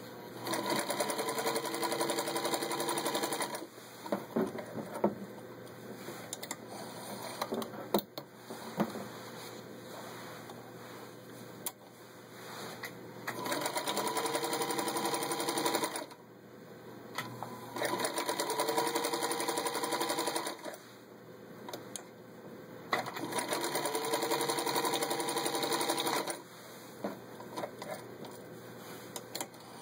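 1955 Singer 221-1 Featherweight sewing machine stitching through four layers of denim in four separate runs of about three seconds each. The motor's whine rises briefly at the start of each run, then holds steady. Scattered clicks and knocks come between the runs.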